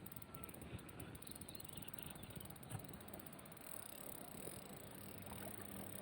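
Faint outdoor background noise with a few soft clicks, one a little louder about three seconds in.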